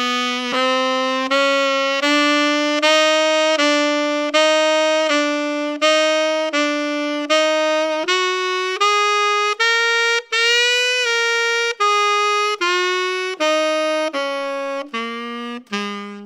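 Solo saxophone playing a blues phrase slowly, one detached note at a time, about a note every two-thirds of a second. It starts on a low note, climbs through a run of repeated alternating notes to a higher run about two-thirds of the way through, then steps back down to the low note at the end.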